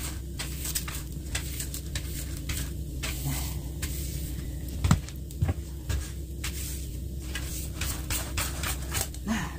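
Wood fire crackling in an open wood stove: irregular pops and snaps over a steady low hum, with one louder knock about five seconds in.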